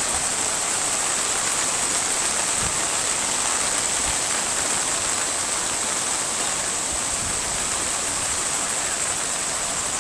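Floodwater on a flooded road rushing steadily: an even, unbroken hiss of water.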